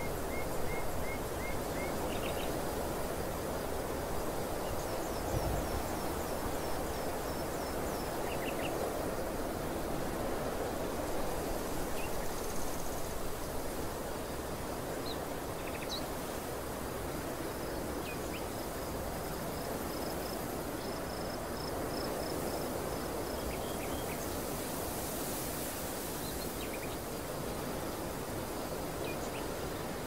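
Open-field outdoor ambience: a steady wind rush over grass, with short series of high, quick chirps coming and going throughout.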